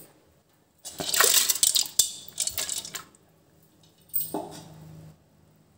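Wet toor dal tipped from a steel strainer into a steel pot of water and chopped vegetables: about two seconds of splashing and pouring grains, then a shorter burst of sound a little after four seconds in.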